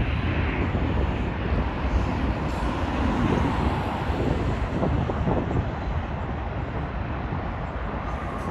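Wind buffeting the microphone over a low, noisy rumble of distant jet aircraft and road traffic, easing off gradually.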